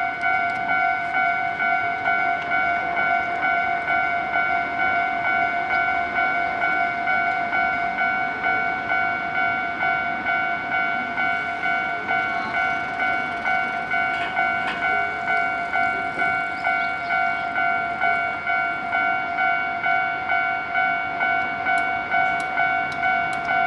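Japanese level-crossing warning bell ringing steadily, about two dings a second, while a train runs past on the tracks.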